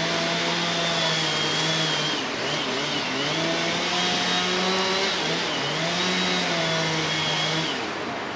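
Two-stroke chainsaw running at high revs while cutting into a tree trunk. Its engine note sags and recovers a few times as the chain meets the wood, then falls away near the end.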